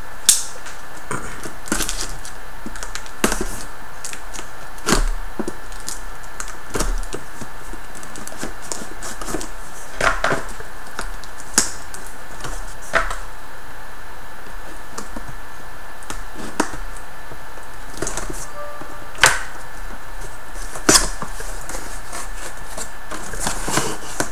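A laptop's shipping box and packaging being opened and handled: scattered sharp clicks, knocks and short rustles, over a steady background hum.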